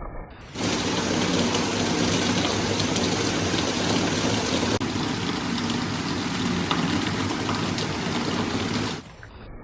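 Heavy rain falling: a dense, steady hiss flecked with individual drop hits. It starts abruptly about half a second in and cuts off shortly before the end, leaving a quieter, muffled rain hiss.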